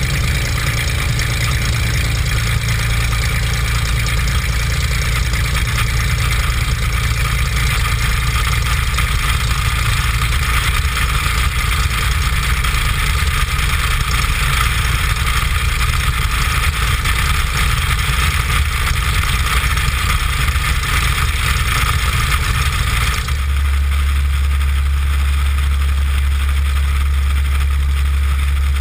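Beechcraft BE33 Debonair's six-cylinder piston engine and propeller running at low taxi power, heard from under the wing as a steady low drone with a broad hiss over it. About 23 seconds in the sound changes abruptly: the drone turns deeper and steadier and the hiss drops.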